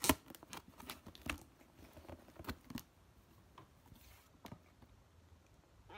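A package being ripped open by hand: tearing and crinkling of the packaging, with a sharp snap at the start and scattered rustles and clicks that thin out after about three seconds.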